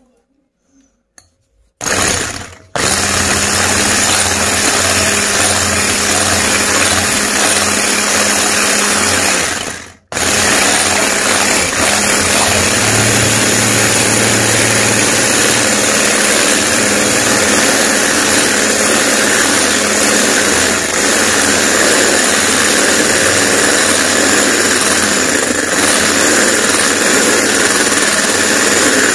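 Electric hand mixer running at speed, its beaters whisking two raw eggs in a glass bowl. It starts about two seconds in and breaks off briefly twice, soon after starting and again about ten seconds in; otherwise it runs steadily.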